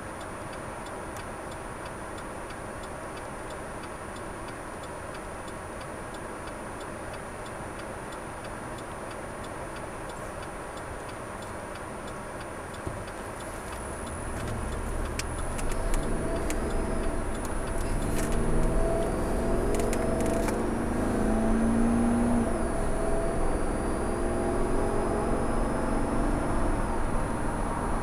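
A car's turn signal ticking steadily, heard from inside the cabin while the car idles at a standstill. About halfway through, the engine and tyre noise swell as the car pulls away and accelerates to about 45 mph.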